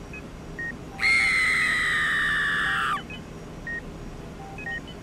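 A loud, high-pitched cartoon scream, held for about two seconds and dropping slightly in pitch as it cuts off. Short, faint electronic beeps, like a hospital monitor, sound now and then throughout.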